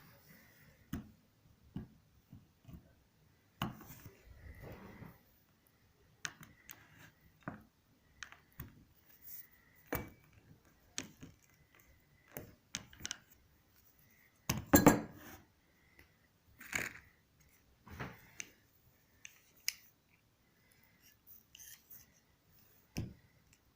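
Ratchet cable cutter being handled and worked: scattered metallic clicks and clinks at uneven intervals, with a louder clatter about fifteen seconds in.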